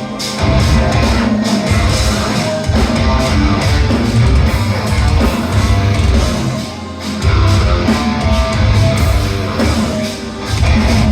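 Live rock band playing loud heavy rock: electric guitar, bass and drum kit.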